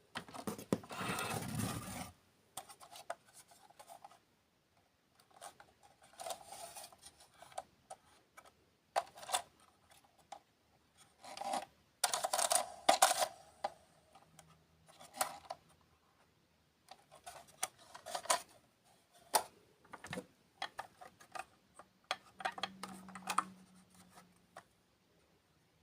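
Close-miked ASMR dessert-eating sounds: irregular bursts of crunching and rustling, some short and some lasting a second or two, with quiet gaps between them.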